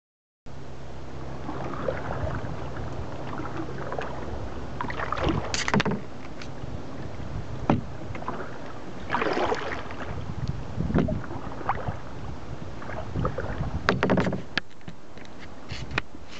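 Water splashing and slapping against a small boat's hull, with several louder splashes a few seconds apart over a steady low rumble.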